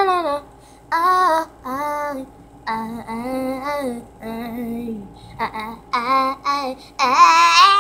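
A girl singing unaccompanied in short sung phrases, ending on a longer, wavering note that rises.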